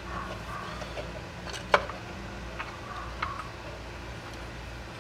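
A screwdriver scraping and clicking against the case halves of a 110cc ATV engine as they are pried apart: light scrapes, then a few short metal clicks, the sharpest about two seconds in. A steady low hum runs underneath.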